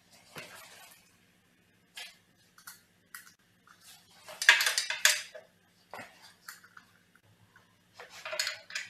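Metal hand tools clinking and scraping against the metal mounting bolts and frame of a CRT television tube, in irregular clanks. The loudest run of rattling clinks comes about halfway through, and another comes near the end.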